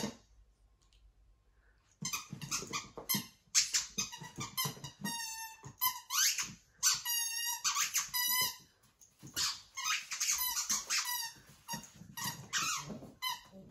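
Rubber squeaky ball squeaking over and over as a miniature dachshund puppy bites and chews it. It starts about two seconds in with quick runs of squeaks, some of them long and wavering.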